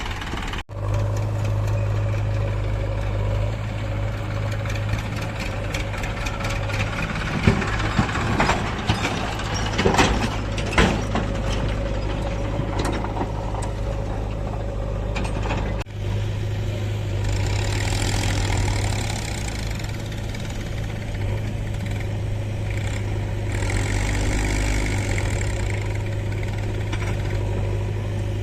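An engine running steadily at idle with a low hum, with a few sharp knocks and clatters about a third of the way in. The sound cuts out abruptly twice.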